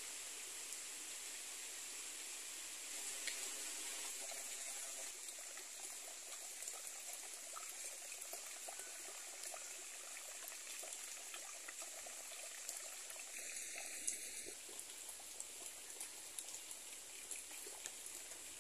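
Faint, steady trickle of running water under an even high hiss, with a brief faint pitched sound about three seconds in and again near fourteen seconds.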